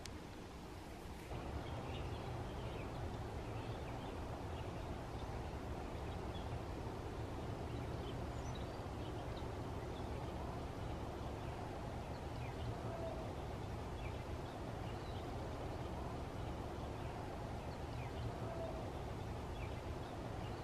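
Outdoor ambience through an open window: low wind noise on the microphone, with many short, faint bird chirps scattered throughout.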